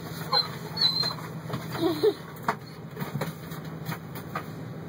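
Short, high whimpering calls from an animal, several falling in pitch, with a few sharp clicks, over a steady low hum.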